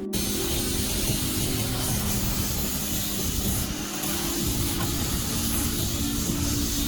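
Woodworking power tool running steadily, a continuous rushing noise with a low motor hum beneath it.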